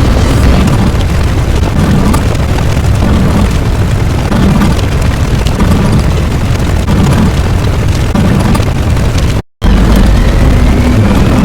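Loud, continuous low rumbling sound effect with a faint rising whine; it cuts out for a split second about nine and a half seconds in, then starts over.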